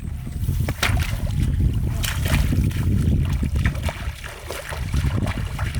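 Water splashing and trickling in short irregular bursts over a steady low rumble.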